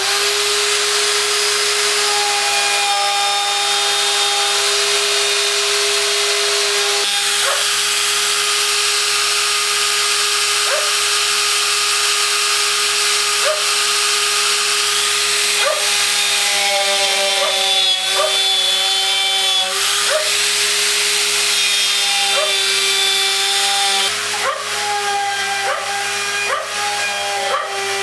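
High-speed milling spindle of a homemade pantograph mill running steadily and cutting wood, a constant whine over a hiss of cutting. Its sound wavers somewhat in the last few seconds as the cut changes.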